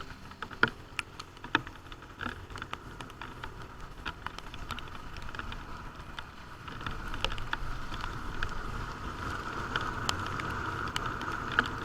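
Motorcycle running along a wet road in the rain, with a steady rumble and road noise that grows louder about two-thirds of the way through, and scattered sharp ticks of raindrops striking close by.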